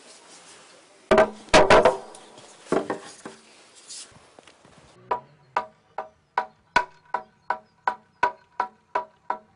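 Wooden klepalo (semantron), a hardwood board, being sounded: first a few loud wooden knocks and clatter as the board is carried and set down. About five seconds in, it is beaten with a wooden mallet in a steady, slightly quickening rhythm of about two and a half strikes a second, each strike giving a short hollow ringing tone.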